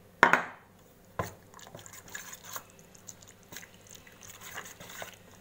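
A metal spoon knocks sharply on a steel bowl twice near the start as curd is dropped in, then stirs a thick, wet marinade with soft squelching and light scraping against the steel.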